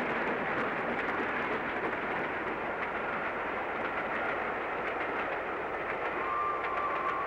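Steam-hauled train running, heard as a steady rushing noise, with a faint high steady tone near the end.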